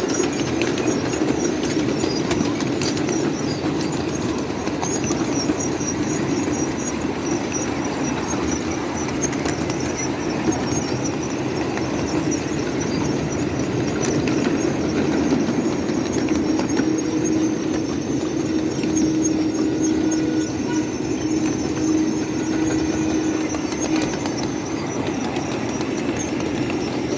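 Train brakes squealing as it rolls downhill behind a coal-fired PRR N2sa steam locomotive, the wheels clicking over the rail joints. A high wavering squeal runs throughout, joined by a steadier lower tone from about halfway in until near the end.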